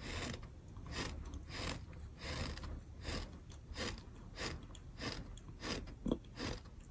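A person chewing a mouthful of sand: gritty crunches repeating in an even rhythm about one and a half times a second.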